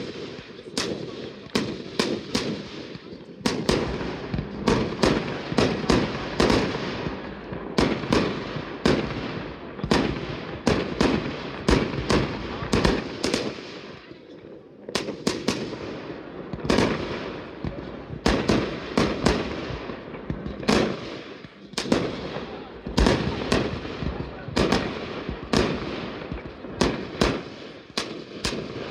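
Fireworks display: a fast volley of aerial shells launching and bursting, with sharp bangs about one or two a second and crackling between them. There is a brief lull about halfway through.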